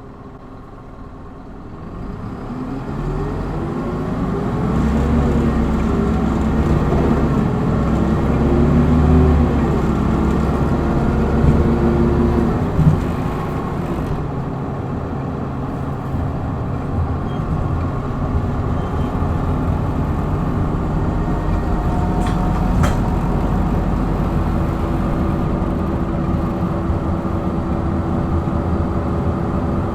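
Hino Blue Ribbon city bus's diesel engine heard from inside the bus, pulling away hard from idle in power mode: the engine note climbs and drops repeatedly through the gears, then settles into a steady cruise after about thirteen seconds.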